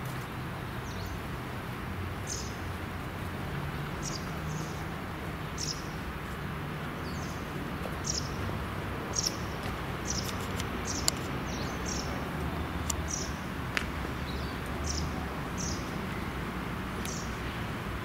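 Outdoor ambience: a steady low hum of distant traffic, with a small bird giving short high chirps about once a second. A few faint clicks.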